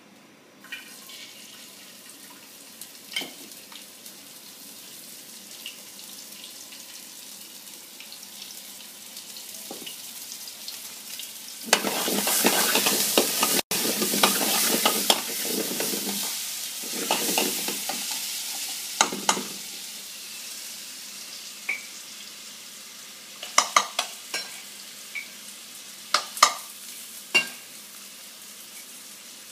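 Curry ingredients sizzling in a stainless-steel frying pan over a gas burner. About twelve seconds in the sizzling surges loud for a few seconds as the pan flares up, then settles back to a steady fry. Sharp clicks of a utensil against the pan come near the end.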